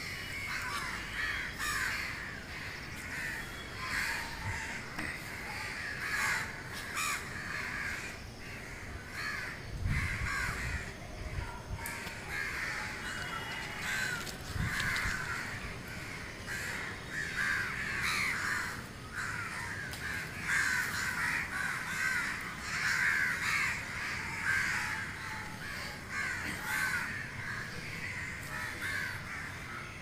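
A flock of birds calling without pause, many short harsh calls overlapping.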